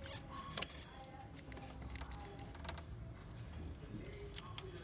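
Scattered light clicks and taps of hand tools and small metal parts while a diesel engine's fuel shut-off solenoid valve is being taken off, over a low steady hum.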